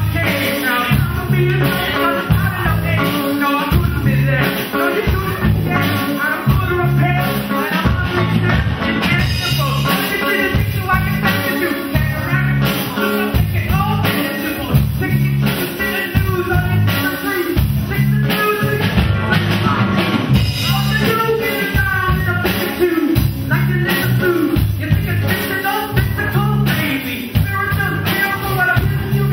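Live rock band playing: a male singer sings into a handheld microphone over electric guitars, bass guitar and a drum kit keeping a steady beat.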